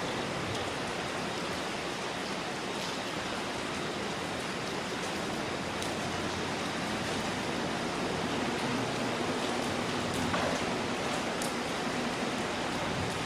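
Steady rain falling, with a few sharper drip ticks. In the second half a faint low hum grows slightly louder, from the freight train approaching in the distance.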